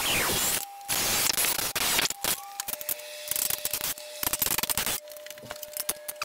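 Makita 18V cordless drill boring into a metal frame rail: the motor whines over the scraping cut in two short bursts, stopping about two and a half seconds in. After that, scattered clicks and small metal handling knocks as parts are fitted.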